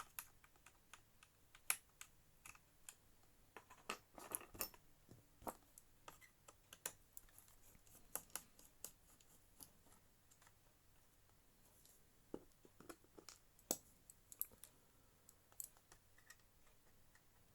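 Faint, scattered clicks and light taps of a small screwdriver and the plastic and metal parts of an opened laptop being worked by hand.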